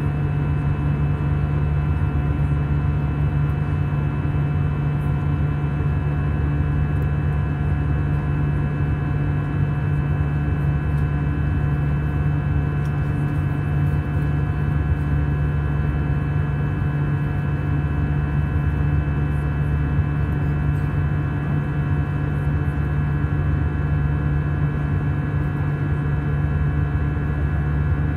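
Cabin noise of an Airbus A320 in flight, heard from a window seat beside the wing: the IAE V2500 turbofan and airflow make a steady drone with a strong low hum and several steady high tones.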